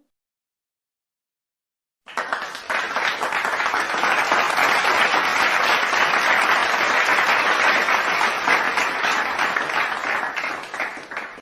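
Applause sound effect: a crowd clapping. It starts abruptly about two seconds in after silence, goes on steadily, and fades near the end.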